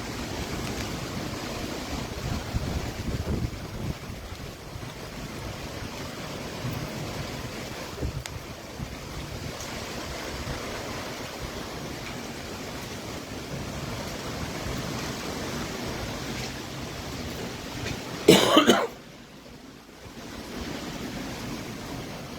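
Storm wind gusting across the microphone, an uneven rumbling rush of noise. About eighteen seconds in comes one loud, sudden burst lasting under a second.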